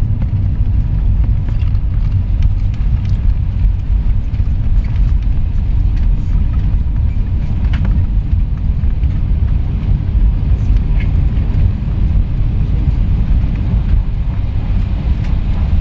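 Airbus A321 in motion: a steady, loud low rumble with a few faint clicks over it.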